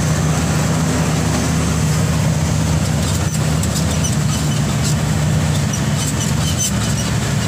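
Truck's diesel engine running steadily as heard from inside the cab, a constant low hum, with a few faint clicks now and then.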